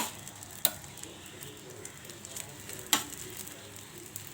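Thick rice-flour flatbread sizzling in a little oil on a flat griddle pan, with three sharp clicks of a utensil against the pan: one at the start, one shortly after, and one about three seconds in.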